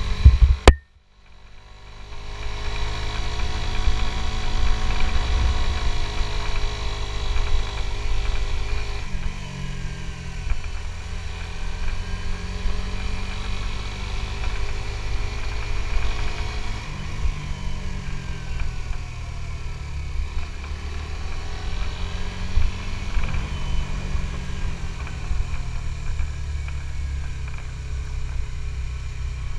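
Suzuki GSX-S150's single-cylinder engine running while riding, its pitch rising and falling as the throttle is worked and gears change, over a steady low wind rumble. A sharp click and about a second of dropout come right at the start.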